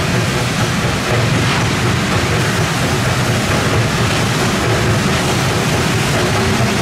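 Two-foot gauge Hudswell Clarke locomotive running: a loud, steady low rumble with a dense noise over it.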